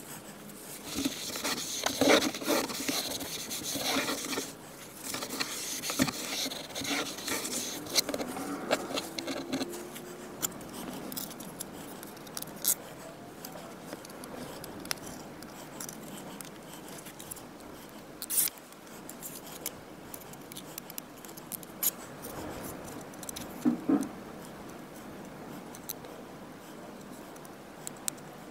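Hands working adhesive carbon-fiber trim pieces onto a car's door panel trim: rustling, scraping and sharp little plastic clicks, busy for the first ten seconds or so, then scattered clicks and a couple of short scrapes.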